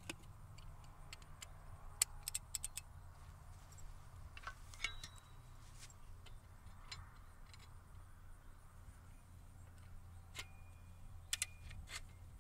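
Faint, scattered metallic clicks and clinks, in irregular small clusters, as a pair of extended-handle ratchets is handled and fitted onto a donut tensioner on coated fence wire, over a low steady hum.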